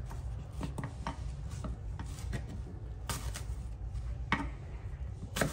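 Kitchen knife cutting apples into big chunks on a wooden cutting board, with irregular sharp knocks as the blade comes down on the board.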